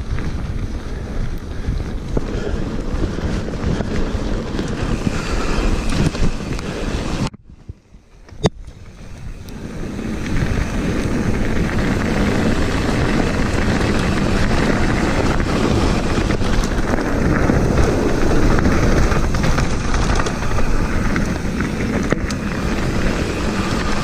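Mountain bike riding fast down a wet gravel forest trail, heard through an action camera's microphone: wind rushing over the microphone mixed with tyres rumbling on the gravel. The noise cuts out for about a second roughly a third of the way in, with one sharp click as it comes back.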